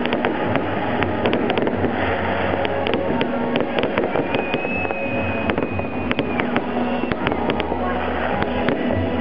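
Fireworks display: a dense, continuous barrage of popping and crackling from bursting aerial shells and crackling stars. A steady high whistle sounds for about two seconds midway.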